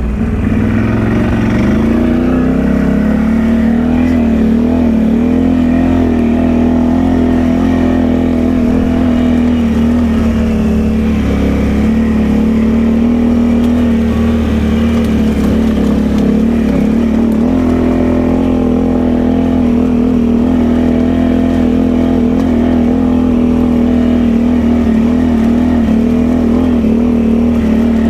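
Can-Am Outlander ATV's V-twin engine running as the quad rides along a trail: it picks up revs about a second in, then holds a steady drone at an even throttle.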